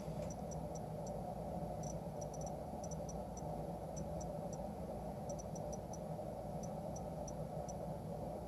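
Faint small clicks from the crown of a Seiko 5 automatic watch being turned to quick-set the day, coming in irregular clusters over a steady low hum.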